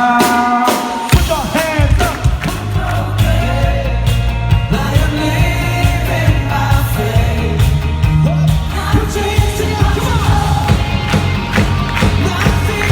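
Live worship band playing loud rock-style music with a singing voice over it. The bass and drums drop out briefly at the start and come back in about a second in.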